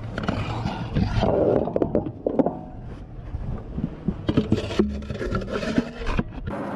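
Loading a towed howitzer's breech: a run of metal clanks, knocks and scraping as the brass cartridge case is pushed in and the breech mechanism works.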